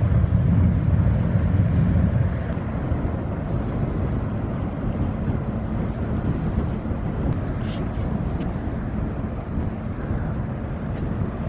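Wind buffeting the camera's microphone, a heavy low rumble that is strongest in the first two seconds and then eases a little.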